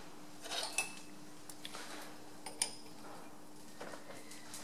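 Scattered light metallic clinks and taps as the change gears on the end of a metal lathe are handled and adjusted, the sharpest about two and a half seconds in, over a faint steady hum.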